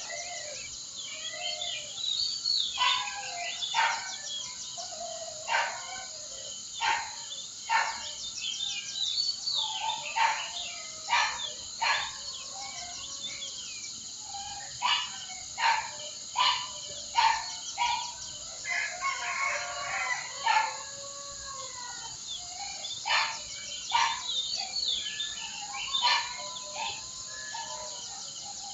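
Many birds calling and singing in short chirps and whistles, with roosters crowing now and then and a steady high insect drone underneath.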